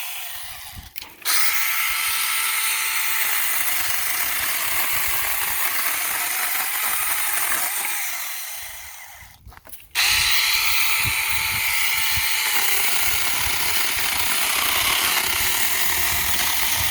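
Saker 6-inch mini battery chainsaw cutting through a branch, its electric motor and chain running with a high-pitched buzz. Twice the motor winds down nearly to a stop and then starts again abruptly, about a second in and around ten seconds in.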